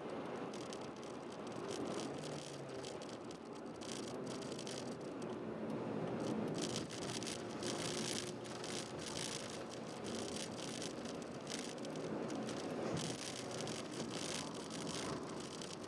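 In-cabin sound of a 2005 Honda Jazz 1.3 being driven: a steady engine and road drone with irregular rattles and clicks from inside the cabin.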